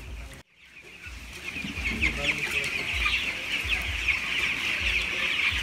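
A large flock of 15-day-old broiler chicks peeping all together, many short high calls overlapping into a steady chorus that fades in over the first two seconds.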